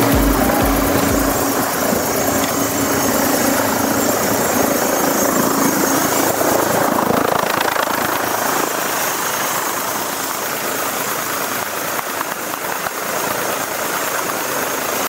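Helicopter's turbine engine and rotor running close by: a steady high whine over a dense rushing noise. Background music stops about a second in.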